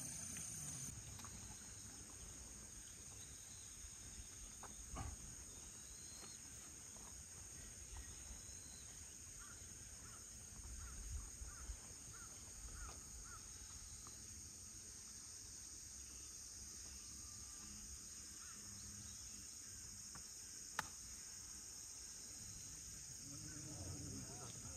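Quiet golf-course ambience with faint, scattered chirps. About 21 seconds in there is a single sharp click of a golf club striking the ball on the shot that is holed for an eagle.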